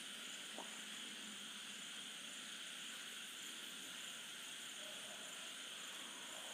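Faint steady hiss from a clay pot of mutton curry cooking on a gas stove, with one light tap about half a second in.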